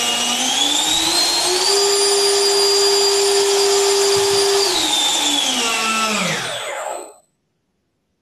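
Electric ducted fan (EDF) jet unit, a 4S-rated fan running on a 3S battery, spooling up to a high whine, holding steady for about three seconds, then spinning down and stopping about seven seconds in.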